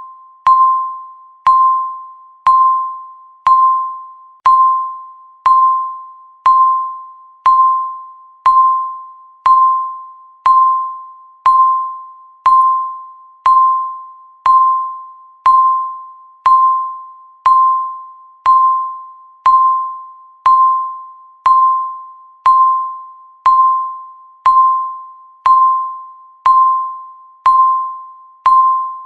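Countdown timer ticking: a single bell-like electronic beep struck once a second, each note fading away before the next.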